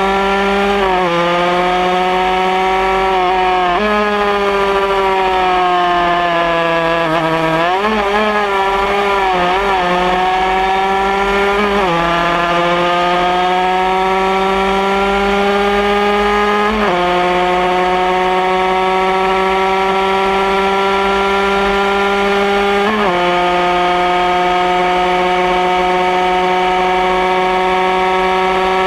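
Honda CR80 80cc single-cylinder two-stroke engine of a Honda RS racing motorcycle heard from onboard under hard throttle, its pitch climbing through each gear and dropping sharply at upshifts, about five times. The pitch wavers up and down for a couple of seconds around eight to ten seconds in.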